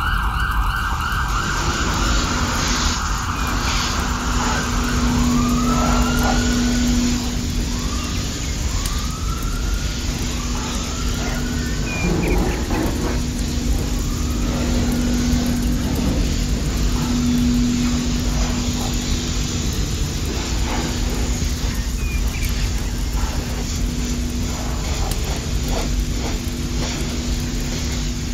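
A siren sounding in short rising-and-falling sweeps that recur every second or two, over a steady low electric hum and a constant hiss.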